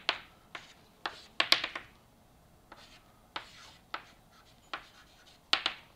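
Chalk writing on a blackboard: a run of short taps and scrapes as symbols are written, the loudest cluster about one and a half seconds in and another near the end.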